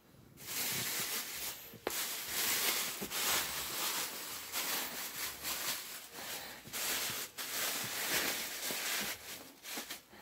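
Rustling and rubbing noise in irregular waves, with a few sharp clicks: a fabric bed comforter being disturbed close to the phone microphone while the camera is moved.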